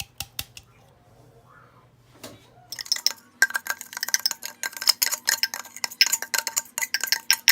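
Utensil clinking rapidly and repeatedly against a bowl, starting about three seconds in, with the bowl ringing faintly under the strokes; a few light clicks at the very start.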